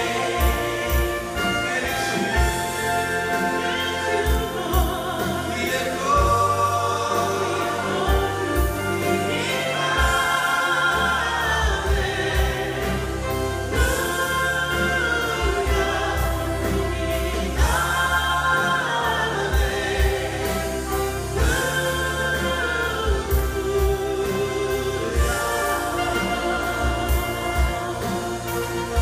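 Large church choir singing a worship song with a live band, drums keeping a steady beat underneath. The choir's long held chords swell up every few seconds.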